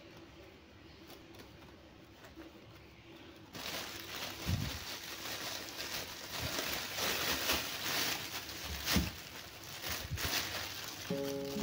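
Thin plastic bag of potatoes crinkling and rustling as it is untied and opened, beginning about a third of the way in after a quieter start, with a couple of soft knocks as potatoes are handled. Music comes in near the end.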